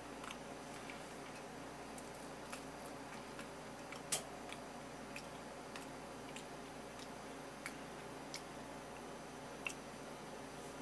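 Sparse light clicks of chopsticks touching ceramic dishes, with one sharper click about four seconds in, over a steady low hum.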